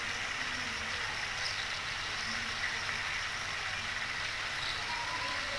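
Raw chicken pieces sizzling in hot oil with ginger-garlic paste in a steel pot: a steady frying hiss.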